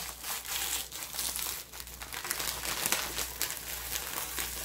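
Plastic packet of dried seasoned laver crinkling and crackling as a metal spoon is pressed hard and rubbed along its fold, creasing the dry sheets inside so they break cleanly.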